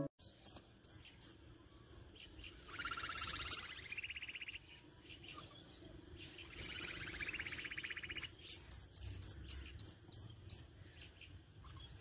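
Nestling songbirds calling from the nest: runs of short, high chirps, four quick ones at the start, two loud ones about three seconds in and a fast string of about ten later on. Softer raspy buzzing calls come in between.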